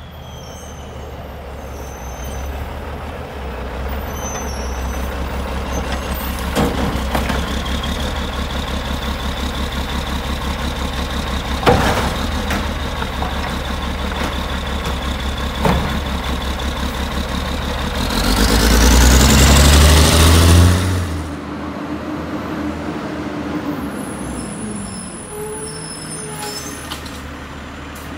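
McNeilus Autoreach automated side-loader garbage truck running at idle with a steady high hydraulic whine while its arm lifts and dumps a cart, with three sharp knocks of the arm and cart against the body. Near the end the engine revs up for a few seconds with a rising whine, then drops back.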